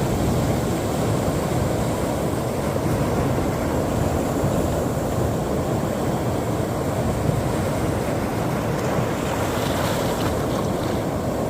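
Sea waves washing on the shore: a continuous, steady surf wash, with a slightly brighter hiss near the end.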